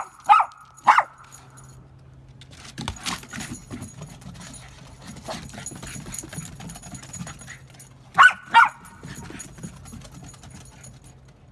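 Dog barking in short, sharp barks: three near the start and two quick ones about eight seconds in.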